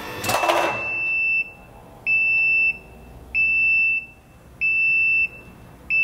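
A scissor lift's warning buzzer beeping while the lift lowers: one steady high beep, each a little over half a second long, repeating about every 1.3 seconds. A brief rattling noise comes just at the start.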